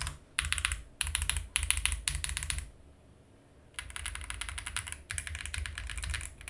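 Typing on a Xinmeng M71 mechanical keyboard with its stock switches: fast runs of keystrokes, a pause of about a second near the middle, then typing again.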